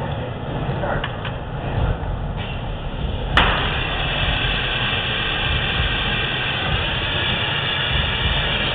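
A handheld gas torch lights with a sharp click a little over three seconds in, then hisses steadily as its flame is played on the hot glass. A steady low rumble runs underneath.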